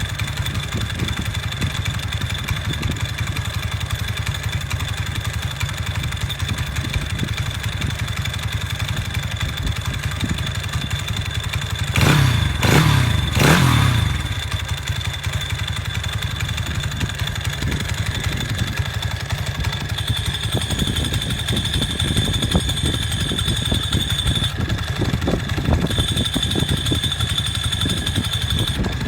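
Honda Wave 125i motorcycle engine with Takegawa tuning parts idling steadily, with a slight metallic jingling rattle that the owner accepts as normal for this engine. About twelve seconds in it is revved up three times in quick succession, then settles back to idle.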